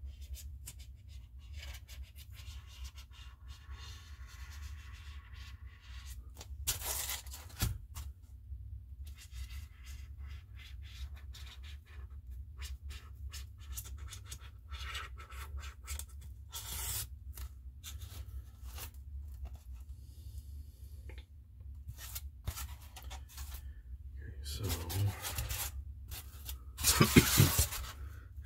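Sketching on a model diorama's ground base: many short scratching strokes of a drawing tool, over a steady low hum. A few louder handling rustles come through, the loudest near the end.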